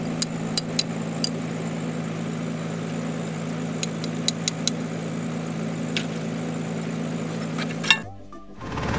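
Drilling rig's engine running steadily, with scattered sharp clicks over it in a few small clusters. The sound drops away abruptly about eight seconds in.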